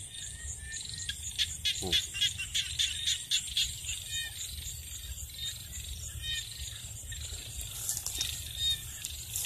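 Frogs and insects calling together: a steady, high pulsing insect trill, with frogs calling over it again and again. A quick run of sharp clicks comes from about one to four seconds in.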